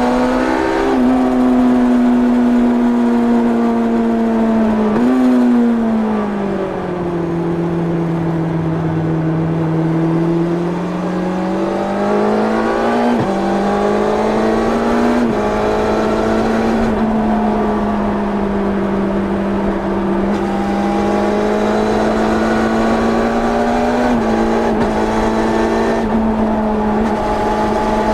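A 1990 Yamaha FZR 600's inline-four engine through its stock exhaust, heard onboard while being ridden hard. It holds high revs, then falls and eases lower in pitch for several seconds. It climbs again with a couple of abrupt steps in pitch and runs fairly steady for the rest.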